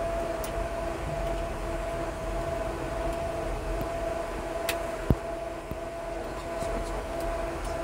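Steady cockpit hum of a parked jet airliner with its engines shut down: air conditioning fed by the APU and the avionics fans running, with a constant whine tone through it. A sharp click comes a little before five seconds in, and a short knock half a second later.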